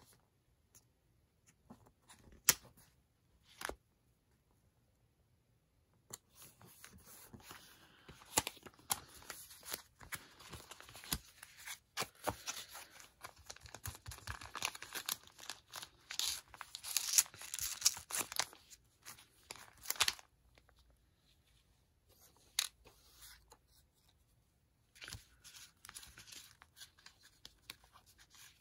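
Paper sticker sheets being handled and rummaged through: rustling and crinkling paper with many small clicks and taps. It is densest from about six to twenty seconds in, with a few single taps before and fainter handling after.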